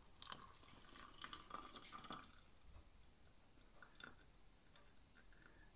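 Near silence: room tone with a few faint clicks, most of them in the first two seconds and one about four seconds in.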